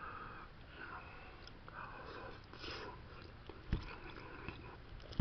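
A person quietly chewing a mouthful of food, with one sharp knock about three and a half seconds in.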